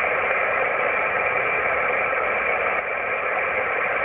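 Yaesu FT-817 transceiver receiving on 10-meter single sideband, its speaker giving a steady hiss of band static with no signal on the frequency. The hiss sits in a narrow band of mid pitches and does not change.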